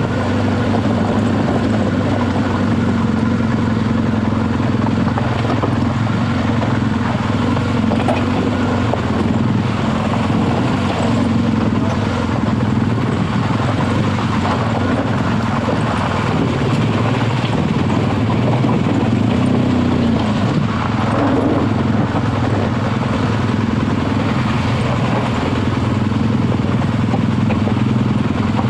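BMW R1200GS Adventure motorcycle's boxer-twin engine running at low, steady revs while riding a steep, loose, rocky trail, with scattered clatter over it. The pitch rises and falls briefly about twenty seconds in.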